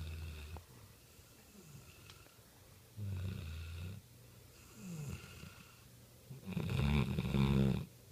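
Sleeping mastiff snoring, one low snore every couple of seconds with quiet breathing in between; the longest and loudest snore comes near the end.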